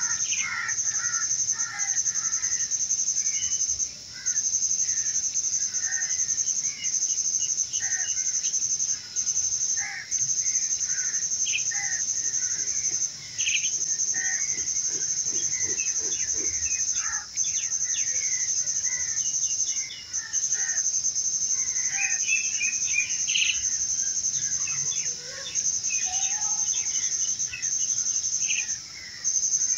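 Birds chirping over a steady high-pitched insect trill, like crickets or cicadas, which breaks off briefly every few seconds.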